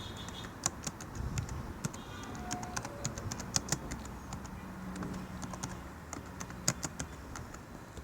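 Typing: irregular light clicks in uneven runs, with short pauses between them.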